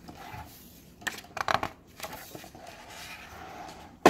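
Pages of a hardcover picture book being turned by hand: paper rustling and sliding, busiest about a second and a half in, with a sharp tap at the end.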